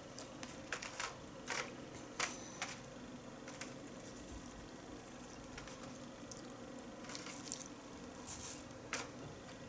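Soft, scattered clicks and small wet mouth noises of someone eating sushi rolls with wooden chopsticks: chewing, and the chopsticks tapping against a plastic takeaway tray.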